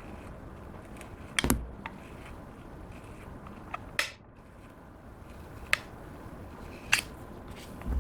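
Clear slime being worked by hand, giving a few sharp sticky clicks and pops: a double click, then a short crackle, then two single snaps.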